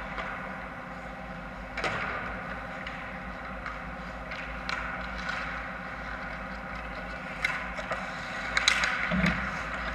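Ice hockey play in a rink: a steady hum under scattered sharp clacks of sticks and puck on the ice, getting busier and louder near the end as play comes in on the net, with a couple of dull thumps.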